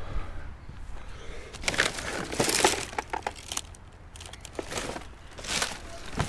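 Crunching and rustling handling noises, a longer spell about two seconds in and a shorter one near the end, typical of rubbish being picked through and moved.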